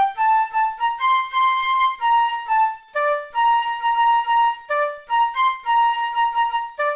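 Synthesized flute voice from the Perfect Piano phone app playing a slow melody, one held note after another, over a soft lower accompanying note.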